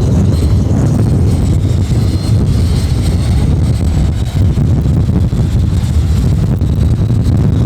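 Strong wind buffeting the microphone, a loud steady rumble, with the faint high whine of an electric ducted fan RC jet flying at a distance.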